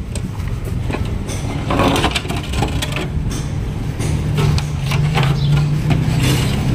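Electric water pump running with a steady hum while its water jet splashes on the wet floor; the hum grows louder about four seconds in.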